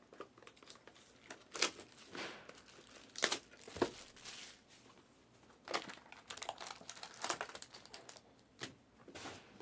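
Plastic wrapping on a trading card box crinkling and tearing as it is opened, in irregular handfuls of crackles with a few louder rips.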